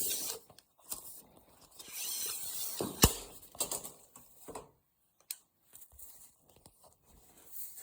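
Tape measure being handled against a wooden box: scattered clicks and rustles, a short scraping stretch, then one sharp click about three seconds in.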